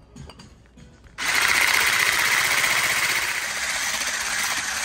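Hand-held electric whisk (an immersion blender with a whisk attachment) switched on about a second in, then running steadily as its wire whisk beats egg yolks and sweetened condensed milk into a froth.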